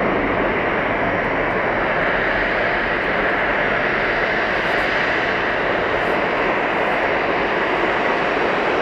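Jet engines of a Boeing 737-800 (CFM56-7B turbofans) running at steady power, heard as an even, unbroken rush of noise that neither rises nor falls.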